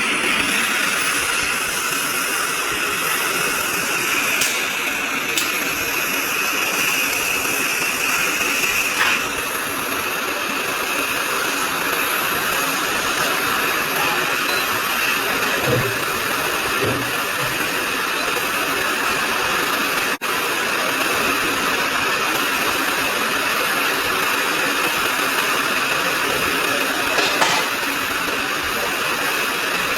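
Hot air rework station blowing with a steady hiss, broken by a few faint clicks and a brief dropout about twenty seconds in.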